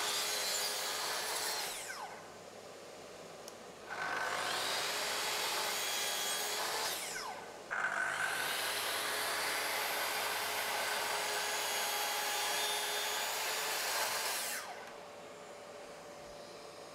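Festool plunge-cut track saw cutting along its guide rail through the workpiece in three passes, sawing kerfs for a tenon, with a falling whine as each pass ends. A dust extractor hums steadily underneath, including in the quieter gaps between passes.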